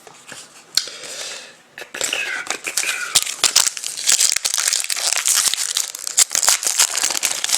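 Trading-card pack wrapper being torn open and crinkled by hand. Dense crinkling and crackling starts about two seconds in and keeps going.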